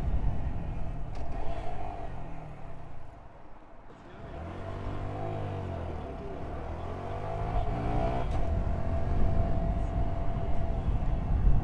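Honda Grom's 125cc single-cylinder engine pulling away. Its note falls away at first, then from about four seconds in it climbs and drops in pitch several times as the rider shifts up through the gears. It settles to a steadier drone with low wind rumble near the end.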